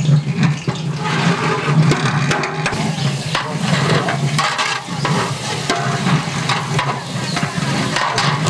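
Sliced onions frying in oil in a large cooking pot, sizzling steadily, while a long ladle stirs them with frequent scrapes and knocks against the pot.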